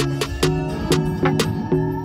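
Music with a quick, even beat of sharp percussive strikes and pitched notes.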